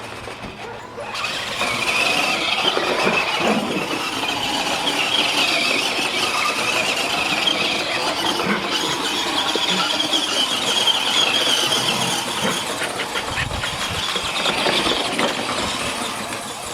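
Electric motor and gears of an ECX Circuit RC truck running hard, a high-pitched whine that wavers up and down with the throttle.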